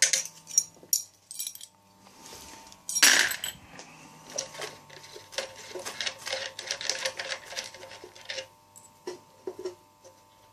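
Steel hand tools clinking and rattling as an open-end wrench is handled, with a sharper metallic knock about three seconds in and a run of quick clicks and clinks a little later.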